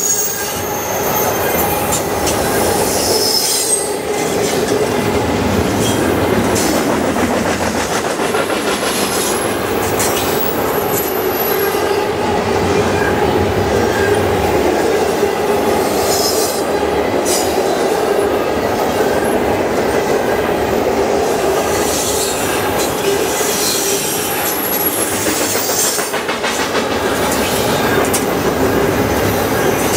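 Double-stack intermodal container cars of a freight train passing at speed: steel wheels running steadily on the rails, with a few brief high-pitched squeals.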